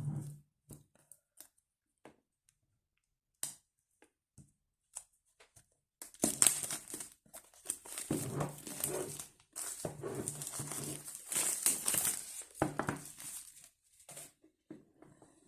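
Smartphone box and its packaging being opened and unwrapped: a few scattered light clicks at first, then about eight seconds of crinkling and rustling from about six seconds in.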